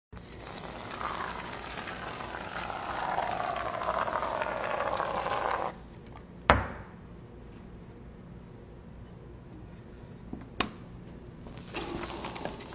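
Hand press with a perforated metal basket squeezing soft pink material out through its holes. A rubbing, squeezing noise that drifts lower in pitch runs for about six seconds. After that come two sharp clicks, one about six and a half seconds in and one about ten and a half seconds in, then more squeezing noise near the end.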